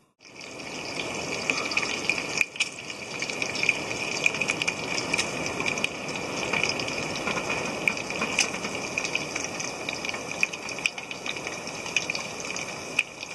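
Bacon frying in an iron skillet: a steady sizzle full of small crackles and pops, fading in just at the start.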